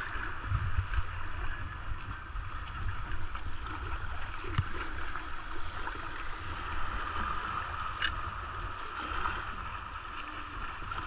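Fast-flowing water of a swollen river rushing steadily around a kayak, with a low rumble on the microphone and a few faint clicks.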